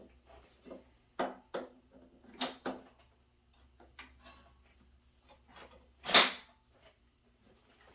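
Plastic parts of a pressure washer being handled and fitted: a string of irregular knocks and clicks as the handle is pushed into place, with one loud sharp knock about six seconds in.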